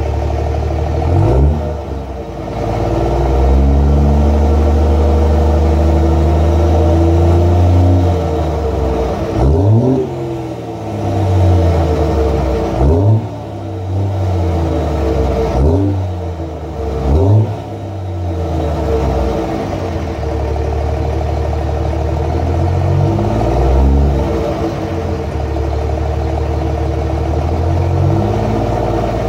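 Straight-piped 5.9 L Cummins inline-six turbodiesel of a 2007 Dodge Ram 2500 with a 2nd-gen exhaust manifold, free-revved while parked. There are a couple of quick blips, then a rev held for several seconds, then more sharp blips, each falling back toward idle. The exhaust note is loud and unmuffled.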